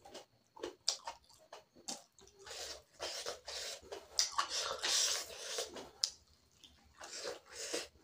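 A person chewing a mouthful of pork curry and rice, heard as a quick, irregular run of mouth smacks and clicks.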